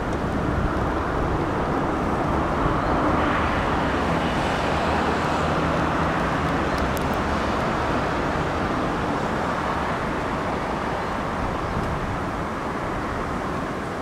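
Strong wind rushing through trees and buffeting the microphone, swelling in strength in the middle and easing toward the end.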